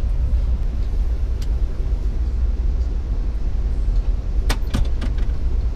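Steady low rumble of a moving passenger train heard from inside the car, with a few sharp clicks: one early, then a quick cluster of three or four about four and a half seconds in.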